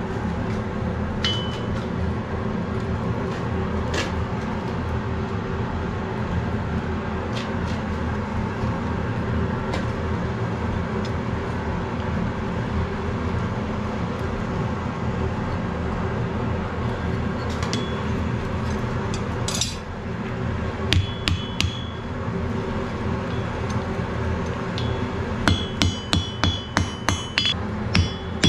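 Steady drone of the coal forge's blower, with a few sharp clinks of tongs and metal. Near the end, a hammer strikes the glowing wrought-iron axe blank on the anvil in a quick run of about three ringing blows a second.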